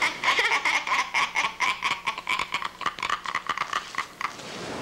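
A person's high-pitched cackling laugh, a fast string of 'ha' pulses at about five or six a second, breaking off about four seconds in.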